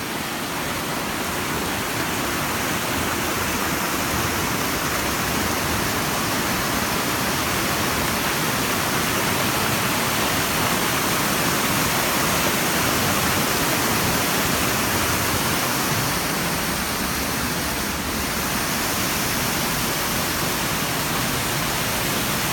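Small waterfalls and cascades of white water rushing over mossy rocks, a steady full rush that holds even throughout.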